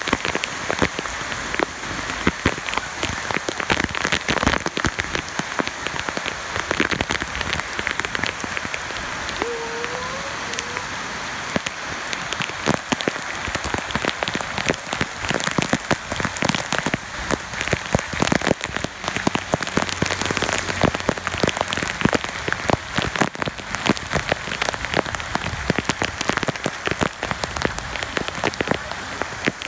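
Heavy rain falling on a flooded street and its pooled muddy runoff: a dense, steady hiss spattered with many sharp drop hits close by.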